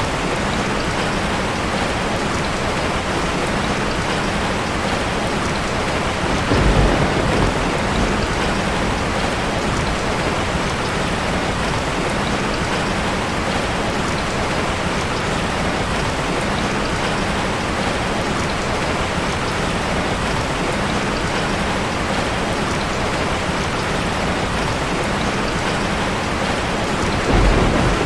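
Heavy rain pouring steadily, with two short low rumbles of thunder, one about a quarter of the way in and one near the end.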